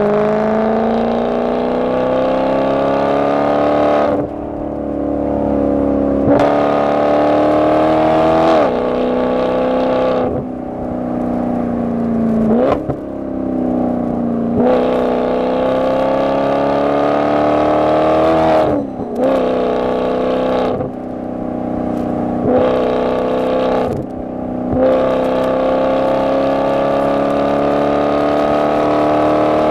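Maserati Quattroporte Sport GT S's V8 through a Tubi-style sports exhaust, heard from inside the cabin under hard acceleration. The engine note climbs and then drops back at each gear change, about ten times, with a few brief lifts off the throttle.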